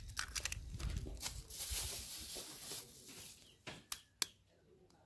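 Raw eggs being cracked with a knife blade into a bowl: a few sharp clicks and taps of the blade on the shells just after the start and again about four seconds in. In between comes a longer rustle, like the plastic bag of eggs being handled.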